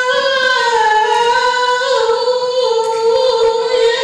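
A man singing solo into a microphone, holding long, high notes that step slowly from one pitch to the next, with no instruments behind him.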